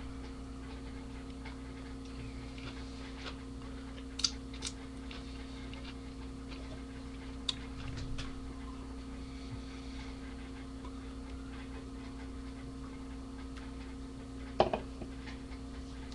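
Steady low electrical hum of room tone, broken by a few sharp clicks and taps: a pair about four seconds in, one about halfway, and the loudest near the end.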